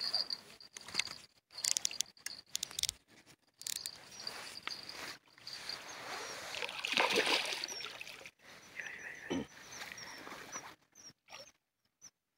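Dry reed stalks rustling and crackling as they are pushed aside and handled at the water's edge, with one longer, louder rustle about seven seconds in. A high steady tone sounds briefly at the start, and short high chirps come in the second half.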